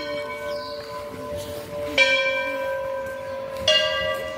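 Temple bell struck twice, about two seconds in and again under two seconds later, each strike ringing on with a clear, lingering tone. The ring of an earlier strike is still fading at the start.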